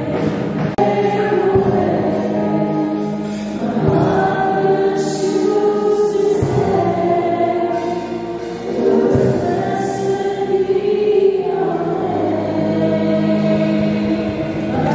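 Small group of male and female singers singing a Christian worship song into microphones, amplified, with held notes and no break.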